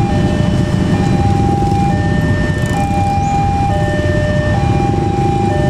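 Railway level-crossing warning alarm sounding a steady two-tone signal, a higher and a lower tone alternating about once a second, which warns that a train is coming. Under it runs a continuous low rumble of engines and traffic.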